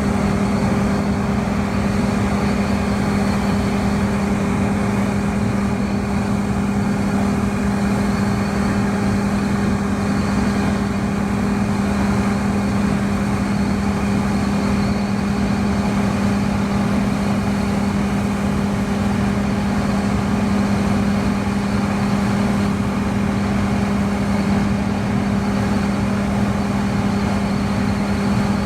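Steady drone of a John Deere combine harvester running at work, a constant low hum over an even rush of machine noise.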